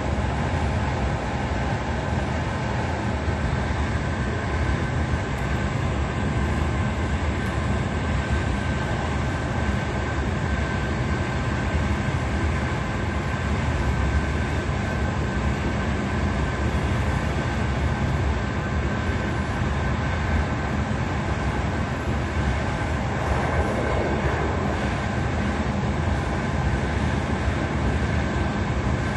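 Passenger train running at speed, heard from inside the carriage: a steady low rumble of wheels on the track with a faint steady whine above it.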